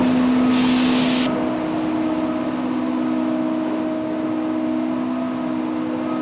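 Industrial hemp processing machinery running with a steady hum of several constant tones, the main hum stepping slightly higher a little over a second in. A short burst of hiss comes about half a second in and lasts under a second.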